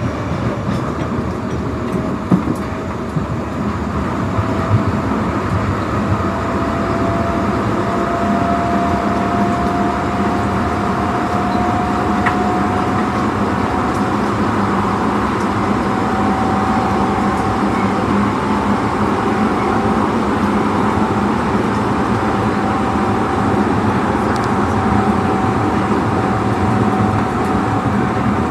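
Osaka Metro Tanimachi Line 22 series subway car 22618 running, its high-pitched motor whine rising slowly in pitch over the first dozen seconds as the train gathers speed, then holding steady over the rumble of the wheels on the rails. A few clacks over rail joints come in the first few seconds.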